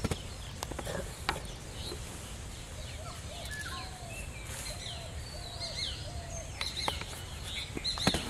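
Small birds chirping and calling from the trees around a pond, many short curved chirps, over a steady low background hum, with a few sharp clicks.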